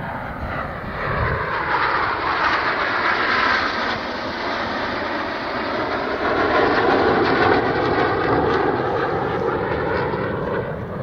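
Red Arrows BAe Hawk jets flying past in formation, a continuous jet noise. It swells about a second in, and its pitch drops as they pass, about six seconds in.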